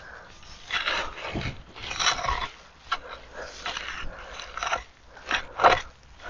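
A long-handled claw cultivator raking and scraping through leafy compost in a wooden bin: irregular rustling, scratching strokes, about half a dozen, the loudest pair near the end.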